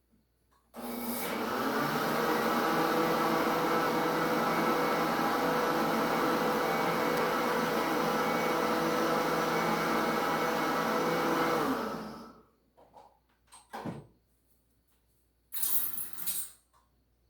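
Electric kitchen blender running steadily for about eleven seconds, then switched off. A knock and a short scraping or pouring noise follow near the end.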